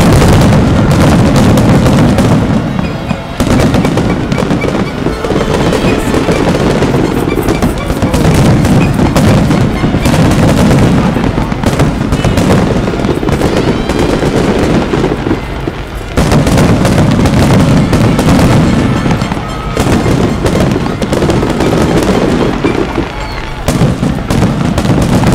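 Aerial fireworks display: shells bursting in a dense, continuous run of bangs and crackles, with brief lulls about three seconds in and about sixteen seconds in.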